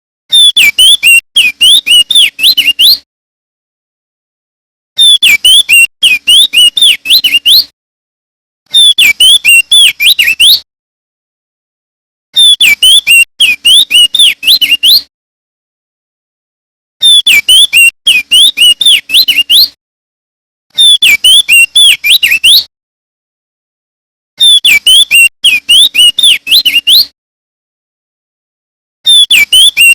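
Male crested darkeye (opior jambul) singing: phrases of two to three seconds of rapid, warbling up-and-down notes, repeated about seven times with a short dead-silent pause between each.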